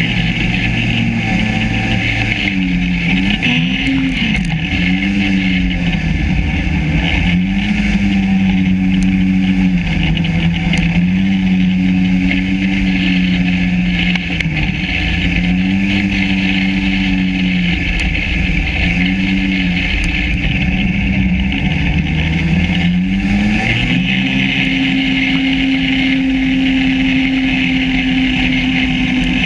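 Yamaha SRV 540 snowmobile's two-stroke twin engine running under way, its pitch rising and falling repeatedly with the throttle, then climbing about 24 seconds in and holding steady at a higher note.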